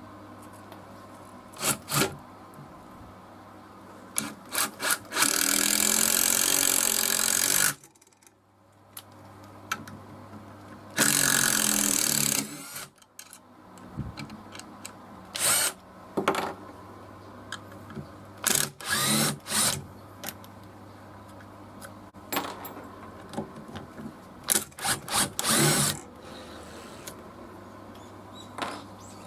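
Bosch GDR18V-LI 18 V cordless impact driver running under trigger control in repeated bursts: many short blips and two longer runs of about two seconds each.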